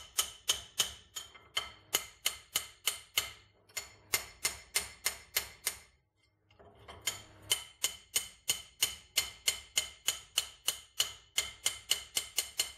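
Rapid light metallic taps on a rusty mortar part held in a steel vise, about three a second, each with a short ringing tone. They pause for about half a second around six seconds in, then carry on.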